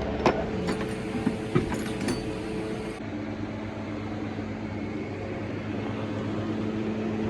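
A steady mechanical hum from a running machine, with a few sharp metallic clinks over the first two seconds.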